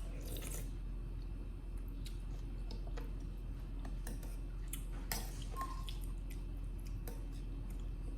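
Monkeys eating: scattered small clicks and a couple of wet smacks, over a steady low hum.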